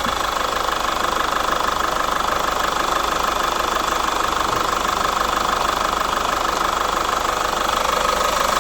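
Chevrolet Captiva FL diesel engine idling steadily with a fast, even diesel clatter, during a check of its faulty injectors.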